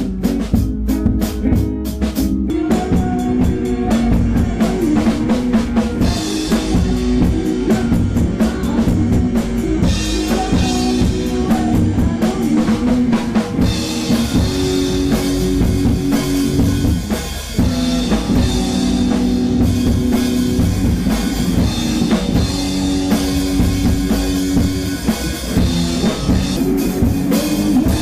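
Live rock band playing: a drum kit keeps a steady beat under electric guitars.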